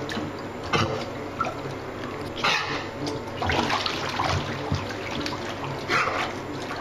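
Steady running and trickling water, with several louder splashes as a dog plays in it.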